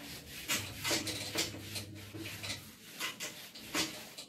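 Whiteboard eraser rubbing across a whiteboard in a series of quick wiping strokes, about two a second.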